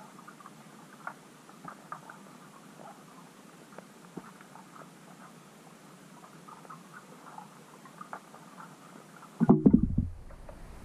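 Underwater camera sound: faint hiss with scattered small clicks and ticks, then about nine and a half seconds in a loud, low thump with a short rumble, as a fish knocks against the camera housing.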